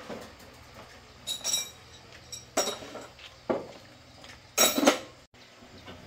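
Metal tools clanking and clinking in a few separate knocks with a short metallic ring, the loudest and longest a little before the five-second mark.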